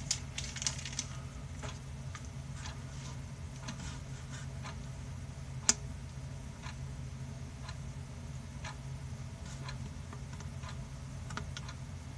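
Scattered faint ticks and clicks over a steady low hum, with one sharper click about six seconds in.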